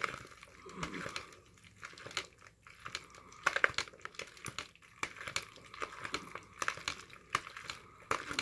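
Macaroni being stirred with Velveeta cheese sauce in a pot: irregular sticky, wet stirring noises with many short spoon clicks and scrapes.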